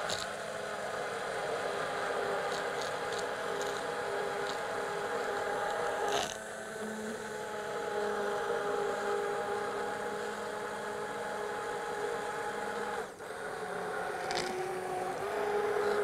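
Electric stick (immersion) blender running in a glass bowl, blending eggs, yoghurt and milk into a smooth mix. A steady motor whine whose pitch shifts a few times, with a short dip about thirteen seconds in.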